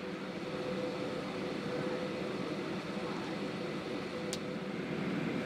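Steady cabin noise of an Airbus A319 on the taxiway with its engines running at low power: a hum and air hiss with a faint steady tone. A single short click about four seconds in.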